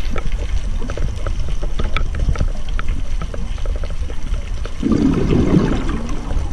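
Underwater recording: a scuba diver's regulator exhaling, a gush of bubbles about five seconds in, over a steady low rumble of water against the camera housing and scattered faint clicks.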